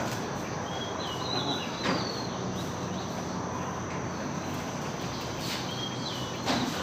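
Outdoor ambience: a steady insect buzz under an even hiss, with two short bird calls, one a little over a second in and one near the end. Two sharp knocks, about two seconds in and near the end, are the loudest sounds.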